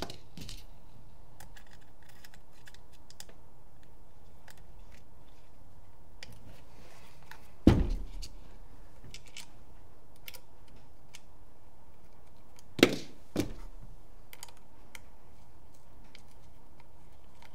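Small clicks and taps of a paintball marker's front shroud and small screws being handled and fitted back onto the gun, with a louder knock about eight seconds in and two more knocks close together around thirteen seconds.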